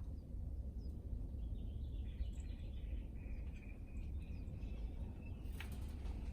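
Outdoor ambience: a steady low rumble with faint bird chirping through the middle, and a single sharp click near the end.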